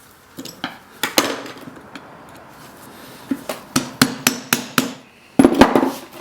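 Sharp metal knocks on a winch drum as a stuck, rusted steel winch cable is worked free: a few single knocks at first, then a quick run of about four a second, and a louder clatter near the end.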